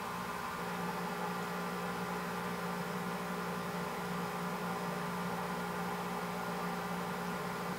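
Steady machine hum with hiss: several constant tones over an even noise, unchanging throughout.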